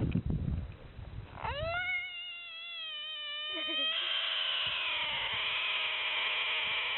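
An animal calling: a long drawn-out call begins about a second and a half in, rising at its start, then holding steady. About four seconds in it gives way to a harsher, rougher call.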